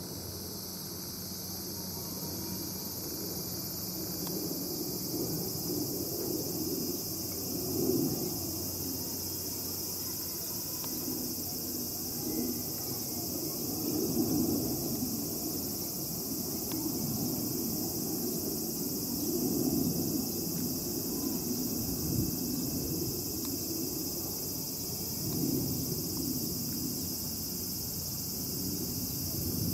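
Steady high-pitched insect chorus outdoors, with a lower rushing sound that swells and fades every several seconds.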